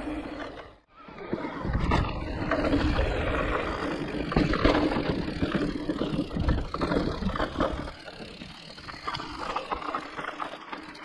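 E-mountain bike on a rough forest trail: tyres rolling over the ground and the bike rattling in a dense, noisy rumble. It eases off somewhat near the end.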